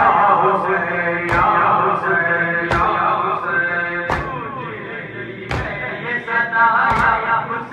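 Men's voices chanting a noha, a Shia lament for Husayn, over a crowd beating their chests in unison (matam). There is a sharp slap about every one and a half seconds, six strokes in all.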